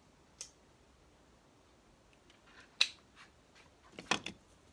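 A few short, sharp clicks and taps from a rotary cutter and cut wool fabric being handled on a cutting mat. There is a single faint click early on, a louder one near the middle, and a quick cluster of three or four near the end.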